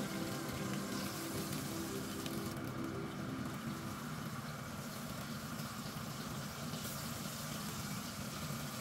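Minced-beef lyulya kebabs on wooden skewers frying in a pan of hot oil: a steady sizzle.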